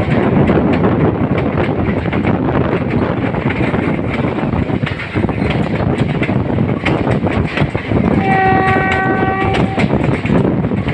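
Passenger train coaches rolling along the track: a steady rumble with the clickety-clack of wheels over the rail joints, heard from the side of a moving coach. About eight seconds in, the diesel locomotive ahead sounds its horn once, a single steady chord lasting about a second and a half.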